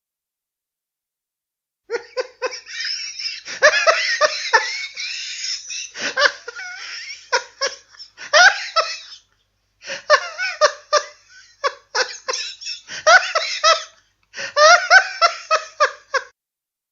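High-pitched laughter in fast repeated bursts, starting about two seconds in and coming in three long fits with short breaks between them.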